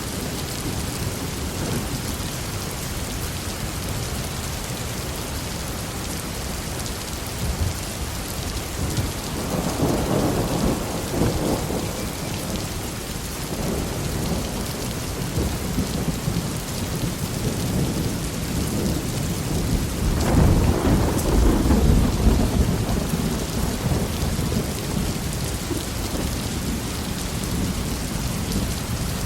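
Heavy rain falling steadily with rolling thunder, which rumbles up twice, the second time louder, about two-thirds of the way through.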